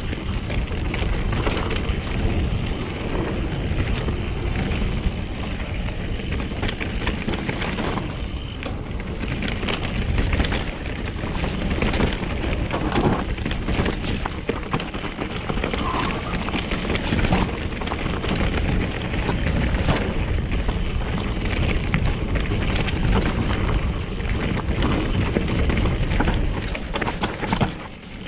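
Mountain bike running fast downhill over a chunky dirt trail: continuous tire rumble with constant rattling and clattering of the bike over rough ground, and wind buffeting a chest-mounted camera's microphone.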